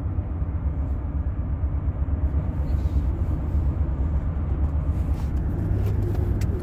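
Steady low rumble of road and engine noise inside a moving car's cabin, with a few faint clicks near the end.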